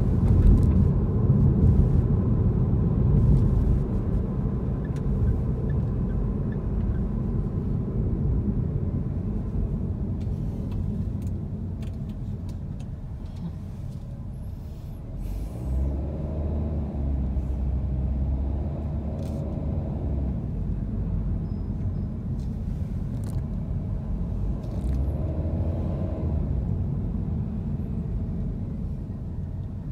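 Road noise of a car driving in city traffic, heard from inside the cabin: a steady low rumble of engine and tyres. Twice, about halfway through and again later, a louder engine note swells and fades.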